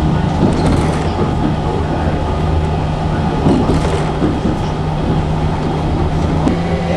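Electric tram running along the line, heard from on board: a steady low rumble of wheels on rails with a continuous motor hum that shifts slightly higher in pitch near the end.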